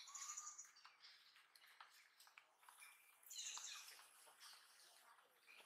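Faint high-pitched squeaks from a baby macaque: a short squeal right at the start and another about three seconds in, with light scuffling clicks between.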